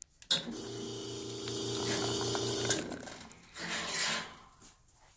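Nuova Simonelli Aurelia Wave espresso machine rinsing its group head: the pump runs and water sprays through the group for about two and a half seconds, a steady hiss over a pulsing hum. It starts and stops with a click.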